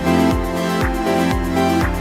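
Background electronic dance music with a steady kick drum about twice a second.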